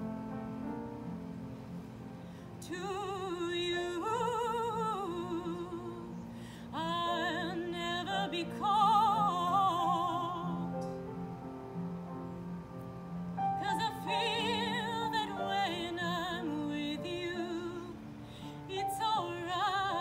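A woman singing in a classical, operatic style with wide vibrato, in phrases that begin a few seconds in, pause briefly around the middle, and start again near the end. Low held tones from an accompaniment sound quietly underneath throughout.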